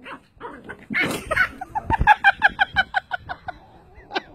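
An animal's rapid run of short, high-pitched calls, about seven a second, with a noisy burst just before it and a few sharp clicks near the end.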